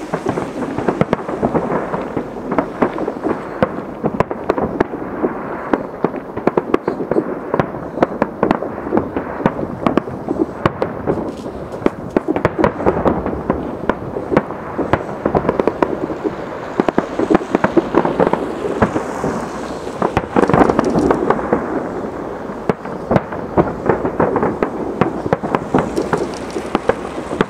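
Fireworks display: a dense, unbroken barrage of bangs and crackles from bursting aerial shells, many a second.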